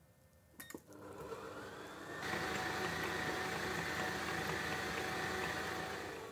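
A click from the stand mixer's dial, then its motor starts about a second in and steps up to a louder, steady run with a faint whine about two seconds in, as the dough hook kneads yeast dough in the steel bowl.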